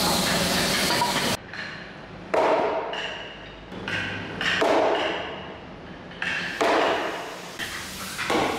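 Mallet blows knocking the timber joints of a nail-free wooden frame together: three loud thuds about two seconds apart, each with a short echo, with lighter knocks between. Before them, a steady hiss cuts off suddenly just over a second in.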